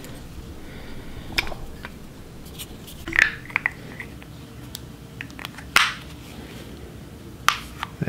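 Handling noise from a refrigerator run capacitor and its wire terminals being worked by hand: scattered light clicks and rustles, with a sharper click about six seconds in.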